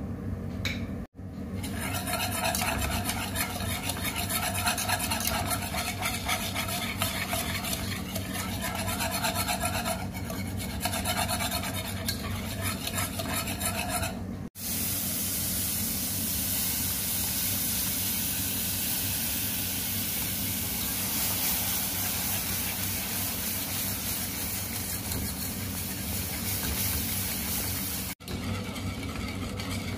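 Food being stirred and scraped in a hot pan in quick repeated strokes, then a steady sizzle. Abrupt cuts break the sound about a second in, about halfway through and near the end.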